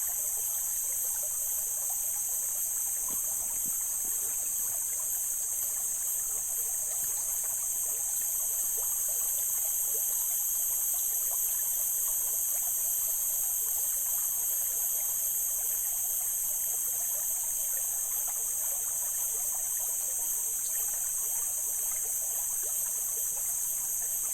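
Mountain stream flowing and trickling steadily, with a constant high-pitched hiss over it.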